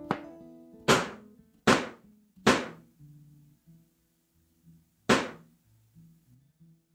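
An old television set being whacked by hand: a light knock, then three hard blows about a second apart, and another after a pause. Someone is smacking it to get the picture back. Faint low tones sound between the blows.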